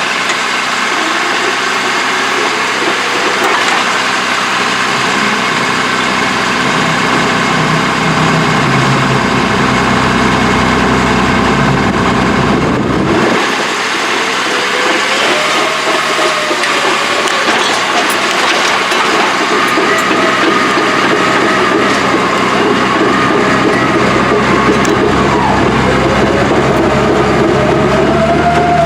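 Old Caterpillar heavy-equipment diesel engine running steadily, with a brief drop in its low end about halfway through and a wavering whine above the engine note in the second half.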